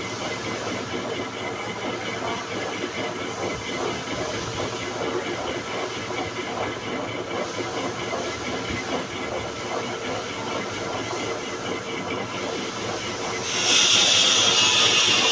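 Manual metal lathe running steadily while machining a motorcycle cylinder head. About 13.5 s in, a much louder, high hiss comes in and holds.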